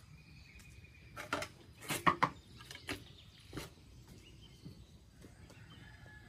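A handful of knocks and clatters of plastic basins being picked up and handled, the loudest about two seconds in, with birds chirping faintly.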